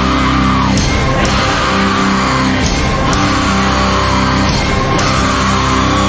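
Loud rock background music, steady and driving.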